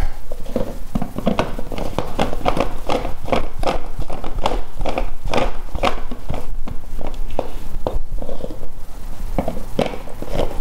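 Plastic filter housings of a reverse-osmosis water filter being spun by hand onto their threaded head: a quick, uneven run of clicks and scrapes from the plastic threads and hands on the housings.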